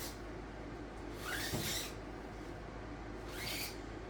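Dirt bike tire being worked onto its rim with tire spoons: two short squeaky scrapes of rubber and metal, each rising in pitch, about a second and a half in and again near the end.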